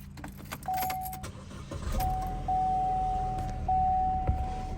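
Chevrolet car's engine running at idle, with keys jangling in the first second or so. A steady electronic warning chime from the car comes in briefly, then sounds again from about two seconds in with short breaks.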